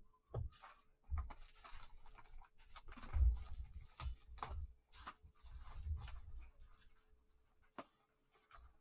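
Plastic shrink-wrap being torn and crinkled off a cardboard Donruss Optic basketball mega box, and the box pulled open. It makes a run of irregular crackles and rustles with low handling bumps, which thins out about seven seconds in, and a single click near the end.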